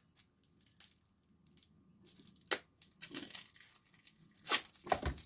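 Knife packaging being opened by hand: scattered rustling and crinkling with a few sharp clicks, the loudest near the end.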